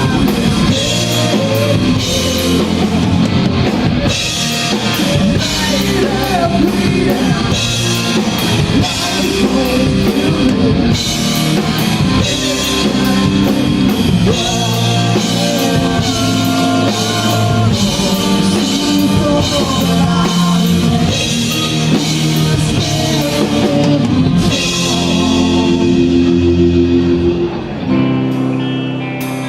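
Live rock band playing an instrumental passage of a song, with drum kit, electric guitars and bass. About 25 seconds in the drums drop out, leaving held guitar chords.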